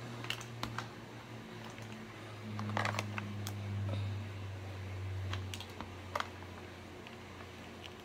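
Steamed mussel shells clicking and tapping as the meat is picked out of them by hand: scattered light clicks, with a small cluster about three seconds in.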